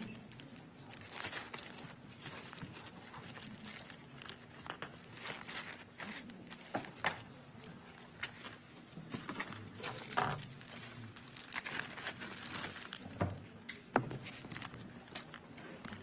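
Quiet small-room ambience with scattered soft rustles and small clicks and knocks, the sharpest about seven, ten and fourteen seconds in.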